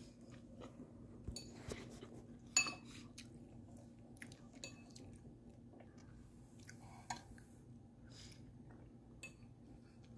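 Faint chewing, with the odd click of a fork against a ceramic bowl and one sharper clink a few seconds in.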